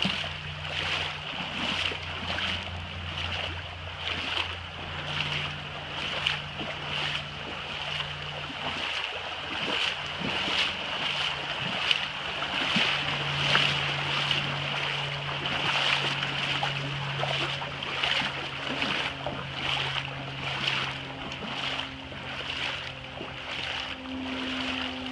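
Footsteps sloshing through shallow floodwater at a steady walking pace, about two splashes a second, over a faint low hum.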